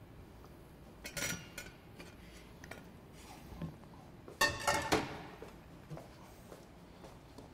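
Kitchen clatter of dishes and utensils clinking and knocking against each other on a counter, in a short burst about a second in and a louder run of clinks around four and a half seconds in.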